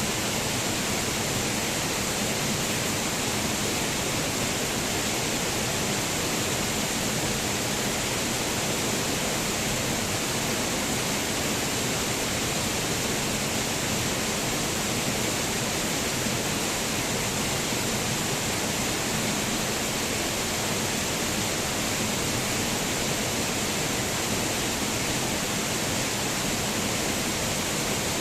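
Waterfall: falling water rushing in a steady, unbroken hiss, brightest in the higher pitches.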